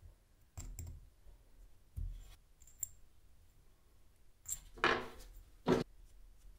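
Small metal clicks and light knocks from handling a steel drill bit and a hex nut on a workbench: a few quiet clicks, then a short scraping rattle and a sharp click near the end.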